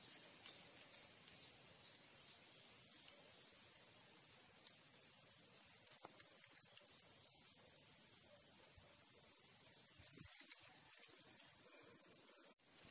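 Steady high-pitched drone of an insect chorus, with a couple of faint ticks; the sound drops out briefly near the end.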